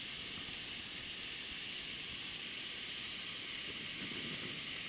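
Wind blowing steadily, a constant hiss with a low, unsteady rumble of wind buffeting the microphone.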